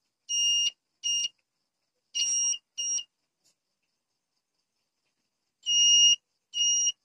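Continuity buzzer of a digital multimeter giving six short beeps of a steady high tone, in three pairs, as the probes touch points on a Samsung J2 phone board; the beep signals a low-resistance path between the probes, used here to hunt for a shorted capacitor. There is a pause of about two and a half seconds before the last pair.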